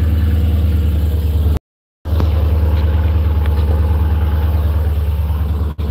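Dodge Challenger's engine idling with a steady, deep rumble, heard close beside the car. The sound cuts out for about half a second near the two-second mark, then carries on unchanged.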